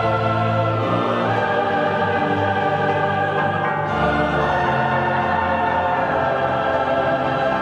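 Orchestral music with a choir singing sustained chords, the harmony changing about a second in and again about four seconds in.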